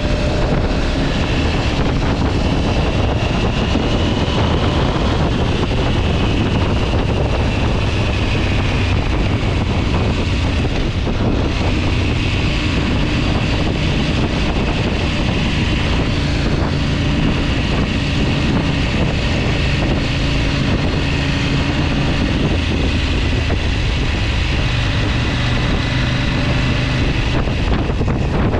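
A vehicle's engine running steadily, with wind noise on the microphone.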